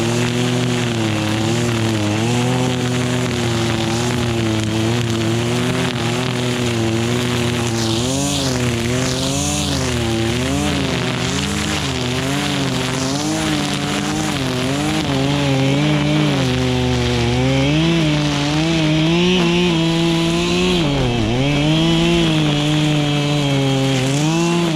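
Husqvarna 535LK string trimmer's two-stroke engine running fast, its pitch rising and falling over and over as the revs change, with one sharp drop in speed about 21 seconds in.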